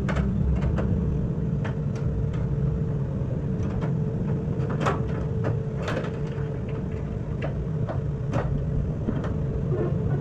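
Workshop noise: a steady low rumble with a faint held hum, broken by scattered sharp clicks and knocks, the loudest about five and six seconds in.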